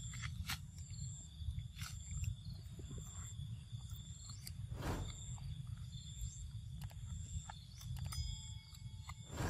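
Outdoor forest ambience: a steady low rumble with a thin, steady high insect drone above it, broken by scattered small clicks and rustles. A faint brief tone sounds near the end.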